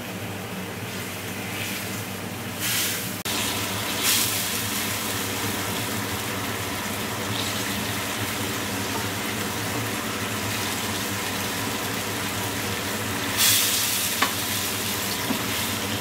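Chicken leg pieces sizzling and bubbling in boiling curry gravy in a pan: a steady sizzle, with louder surges about three, four and thirteen seconds in.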